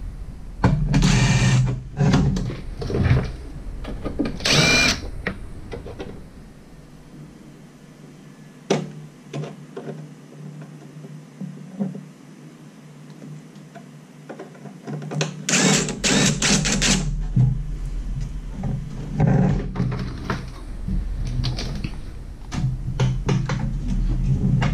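Cordless drill run in short bursts to deburr freshly drilled holes in the sheet-metal case of a toaster oven, with metal knocks and handling sounds between the bursts.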